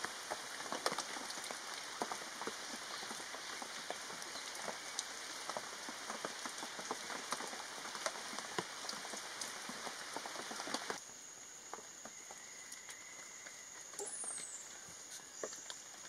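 Pouring rain: a dense, steady patter of drops with scattered louder splashes. It eases to a lighter patter about eleven seconds in.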